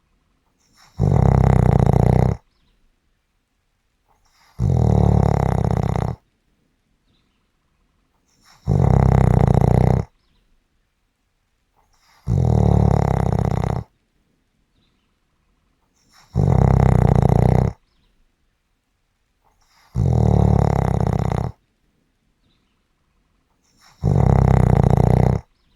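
Loud snoring in a slow, regular rhythm: seven long snores, each about a second and a half, coming about every four seconds with quiet breathing pauses between.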